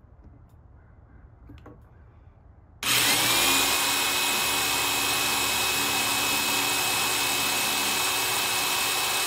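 Corded electric drill starting about three seconds in and running steadily at full speed with a high whine, its bit boring a hole through a plastic spigot handle.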